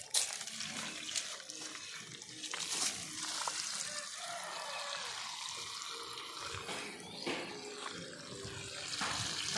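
Water pouring and splashing steadily as plants are watered.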